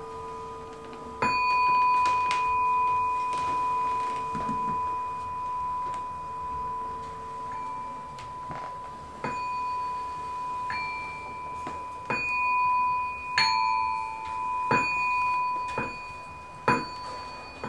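Live music on struck metal chimes: about eight strikes a second or two apart, each ringing on in long, clear, overlapping tones. The ringing swells and fades in slow waves.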